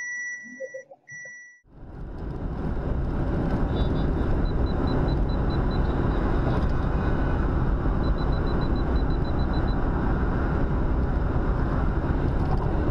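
An electronic warning beep that stops about a second and a half in, followed by steady road and wind noise of a car cruising at highway speed, heard from inside the cabin.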